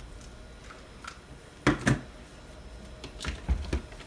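Plastic clacks and knocks from a foam-dart ammo belt and toy blasters being handled on a table: two sharp clacks about two seconds in, then a few lighter knocks near the end.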